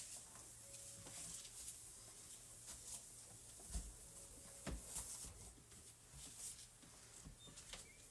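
Faint rubbing of a microfibre nano towel wiped over a stainless steel fridge door, with a few soft knocks of the hand against the door.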